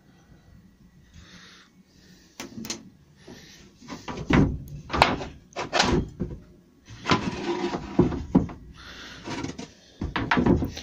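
Beech door stiles and rails knocking and clattering on a workbench as they are turned over and shifted by hand: a run of sharp wooden knocks in irregular clusters, with a longer rough stretch of wood rubbing on wood about seven seconds in.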